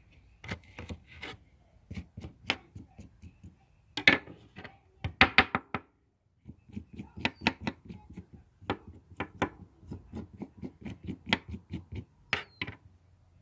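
Knife scraping and cutting a nopal cactus pad: a quick run of short strokes and knocks, with a brief pause about six seconds in.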